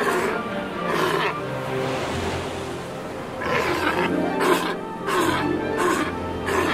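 South American sea lions calling across a breeding colony: overlapping deep, drawn-out bellows and roars, with several louder calls coming in quick succession about halfway through.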